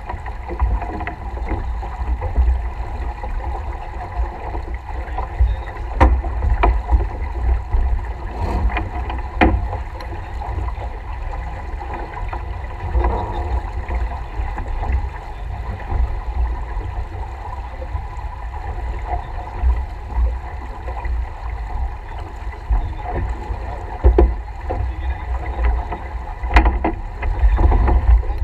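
Wind buffeting the microphone over the wash of water along a sailboat's hull as it sails, with scattered sharp clicks and knocks from gear on deck.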